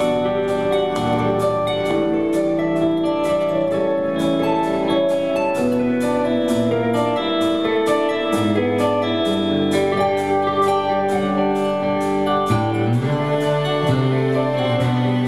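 Live folk-rock band playing an instrumental passage: drums keep a steady beat on the cymbals under electric guitars and a bass line.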